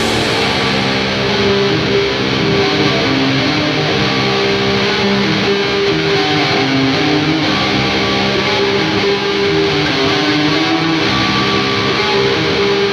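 Heavy shoegaze music: distorted electric guitar chords strummed and left ringing in a dense, sustained wash, with no drum hits.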